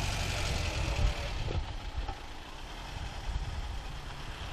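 Car engine idling close by, a steady low rumble that eases off somewhat after about two seconds.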